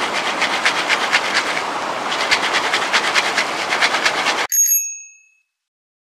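Popcorn kernels popping in a foil pan on a camp stove: a dense, rapid crackle of many pops. It cuts off about four and a half seconds in and is followed by a short ringing chime.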